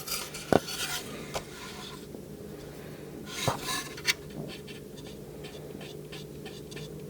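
Small clicks, taps and scratchy rubbing of hands handling small plastic toy parts and paint tools on a work surface, over a steady low hum.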